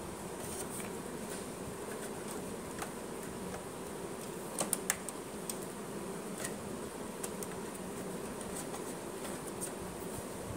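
Light plastic clicks and taps as a rubber pickup roller is handled and pressed onto its shaft inside a Canon LBP6000 laser printer, the loudest a quick cluster of three a little before halfway, over a steady low hum.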